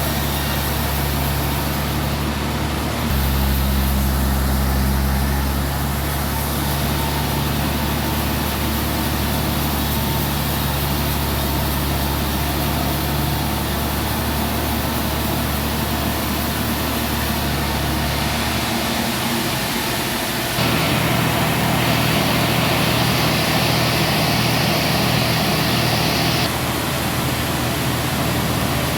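Sawmill machinery's engine running steadily, a low drone that shifts pitch twice. Near the end a louder, higher hiss joins in for about six seconds.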